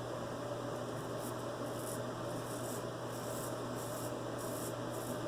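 Vintage George Wostenholm & Sons straight razor scraping through lathered stubble in short strokes, about three a second, starting about a second in, over a steady low hum.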